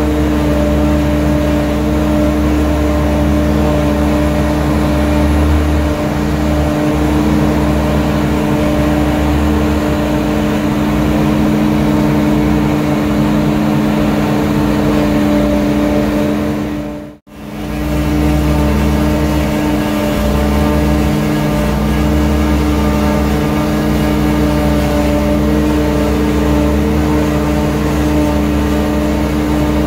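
Steady engine drone of heavy field machinery, a constant hum holding several fixed tones over a rough low rumble. About 17 seconds in it fades out almost to nothing for a moment, then comes back unchanged.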